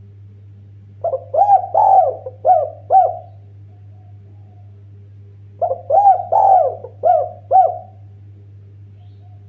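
Spotted dove cooing: two phrases of about five rising-and-falling coos each, one starting about a second in and the other near six seconds, over a steady low hum.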